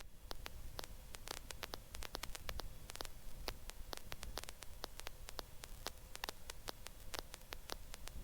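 Faint crackling static on an aviation headset/intercom audio line: many irregular clicks over a low rumble.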